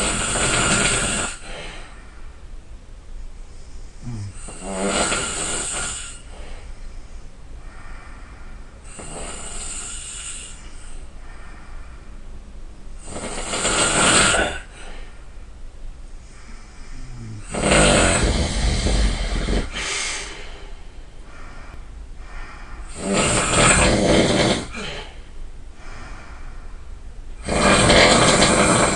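A person snoring loudly: seven long snores, one every four to five seconds.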